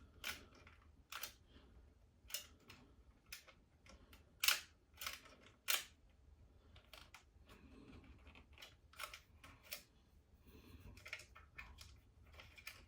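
Sharp plastic clicks and snaps at irregular intervals from a small plastic toy starship being handled and its spring-loaded launchers tested, the loudest about four and a half seconds in.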